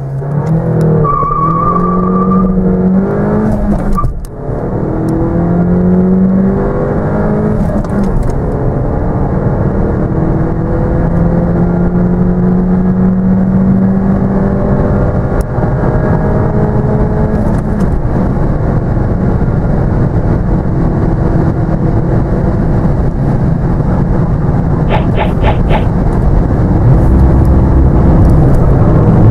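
2014 Mercedes-Benz A 200's turbocharged 1.6-litre four-cylinder petrol engine at full throttle from a standstill, heard from inside the cabin. The engine note rises through the gears of its six-speed manual, with a brief drop at each upshift, the first about four seconds in.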